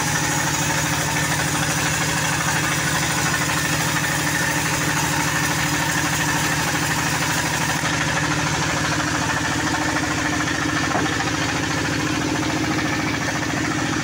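Band sawmill running steadily while sawing a rosewood log: a continuous machine drone with a fine high hiss that thins out about halfway through.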